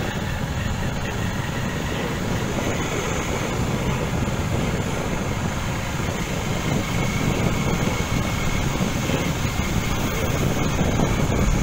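Motorcycle running as it is ridden along a road, with wind rushing over the microphone. The noise is steady and grows slightly louder toward the end.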